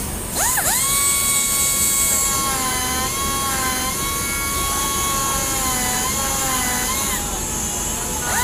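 Pneumatic pen-style grinder abrading denim jeans to make a distressed design. It spins up with a rising whine about half a second in, holds a steady high whine that dips in pitch a few times, winds down near the end and spins up again just before the end. A steady hiss runs under it.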